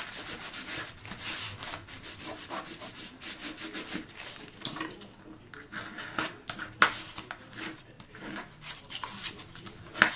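Paper being rubbed and handled at close range as a glued paper envelope is pressed and smoothed: a quick, irregular run of scraping strokes and light crinkles, with a sharper tap about two-thirds of the way through.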